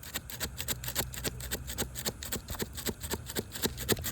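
Rapid, evenly spaced sharp clicks, about five or six a second, from a metal tool being worked under a sealed three-tab asphalt shingle to break its adhesive bond.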